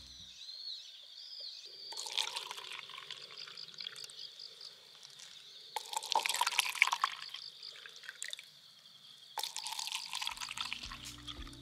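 Green tea poured from a plastic bottle into three plastic cups in turn: three separate pours, each lasting a second or so, over a faint steady high tone.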